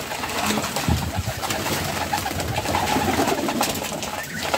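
Flock of domestic pigeons cooing as they crowd around dishes of grain, with wing flaps and many short clicks and scuffles from pecking and jostling.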